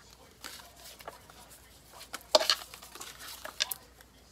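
Paper index cards and folded paper slips rustling and clicking as they are handled and unfolded, in short irregular bursts, the loudest a little after two seconds in.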